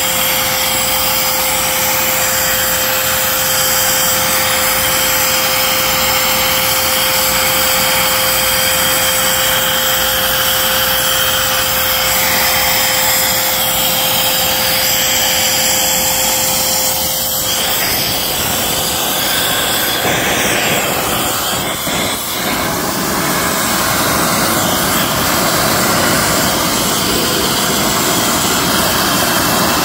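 Vacuum cleaner running, its hose nozzle sucking gunk out of a car's rain-well drains: a loud, steady rushing noise, with a steady whistling tone that stops a little past halfway as the nozzle is moved.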